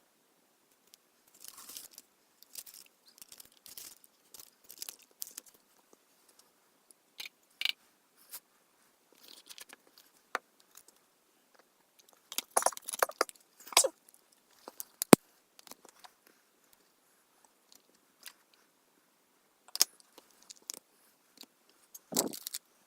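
Close-up handling noises: intermittent light scratching and rustling with scattered clicks, a sharp click about fifteen seconds in, and denser scratchy bursts just before it and near the end.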